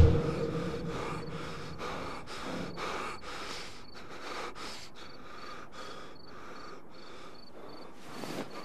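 A man breathing fast and hard in short, even breaths, about two or three a second.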